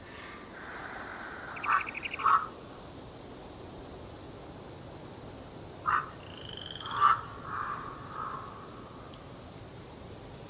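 Short, hoarse wild bird calls over a steady forest hiss. A few calls come about two seconds in, with a quick rattle. More follow about six to eight seconds in, with a higher trill.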